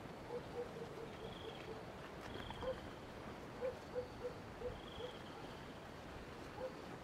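Short, soft animal calls repeating irregularly, several close together early on and a few more spaced out later, with three brief higher-pitched chirps over quiet outdoor background noise.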